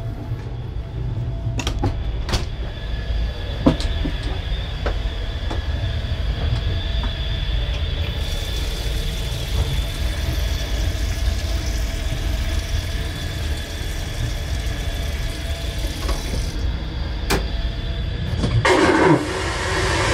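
Steady rumble of a moving passenger train coach, with a few sharp clicks. Partway through, a tap runs into a stainless-steel washbasin for several seconds with a steady hiss. Near the end comes a louder rushing noise for about a second and a half, which cuts off sharply.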